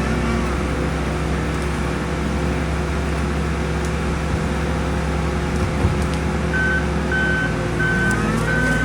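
New Holland C362 skid steer's diesel engine running steadily. About six and a half seconds in, its backup alarm starts beeping, about two beeps a second, as the engine note shifts.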